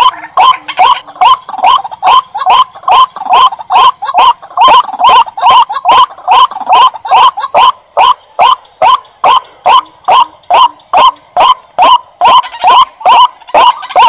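White-breasted waterhen (ruak-ruak) calling, a loud croaking note repeated steadily about two or three times a second.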